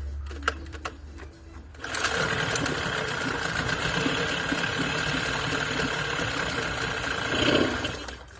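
Johnson 9.9 two-stroke outboard motor running, throttled up about two seconds in and held for about six seconds, then dropping back near the end. The owner says this motor sputters and needs fixing.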